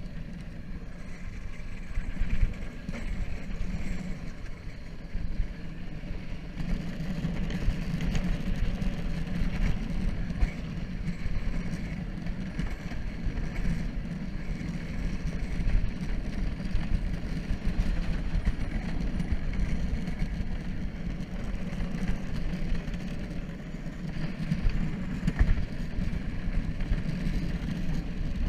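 Gravity luge cart rolling fast down an asphalt track: a steady rumble of its wheels on the pavement that swells and dips a little.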